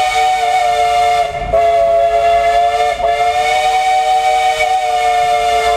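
Steam locomotive's whistle blowing one long blast, a chord of several steady tones sounding together, faltering briefly twice.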